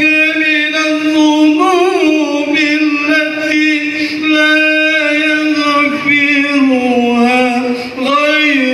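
A man's voice chanting an Arabic supplication in long, drawn-out notes with ornamented turns. The pitch steps down about seven seconds in.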